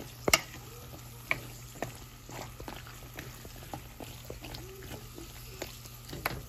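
Wooden spatula stirring garlic cloves through an onion-tomato mixture frying in a pan, with a low sizzle under scattered scrapes and a few sharp knocks of the spatula against the pan, the loudest just after the start.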